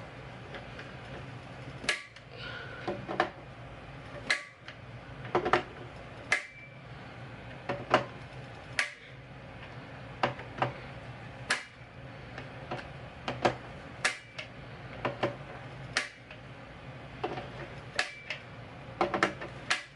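Sharp, irregular metallic clicks and taps from a torque driver working the cap screws of steel scope rings as they are tightened in a crisscross pattern, over a low steady hum.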